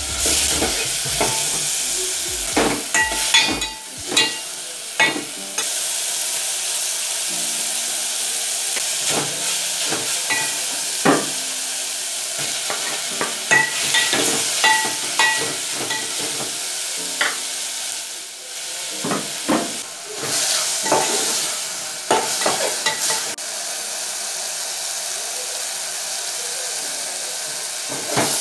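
Beef and onions sizzling as they fry in a metal pot, stirred with a spoon that scrapes and knocks against the pot many times, some knocks ringing briefly.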